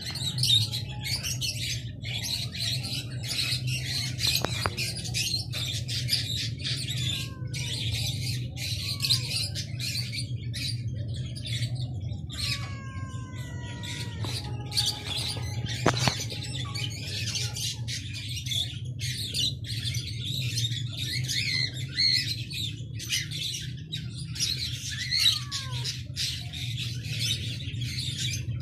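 Many small birds chirping and twittering without a break, over a steady low hum. About thirteen seconds in, a cat gives a short meow that falls in pitch.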